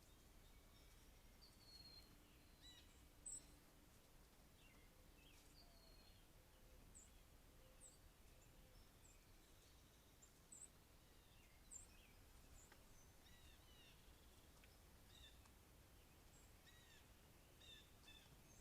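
Faint outdoor birdsong: several birds giving thin chirps and short calls, with a high chirp repeated about once a second through the middle.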